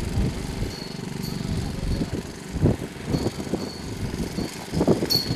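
Engine of a large-scale radio-controlled Piper L-4 Cub model aircraft idling, an uneven low rumble.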